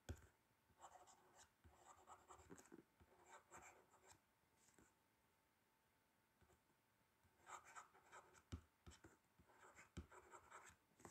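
Faint scratching of a pen writing by hand on a workbook page, in two runs of short strokes with a pause of about three seconds between them.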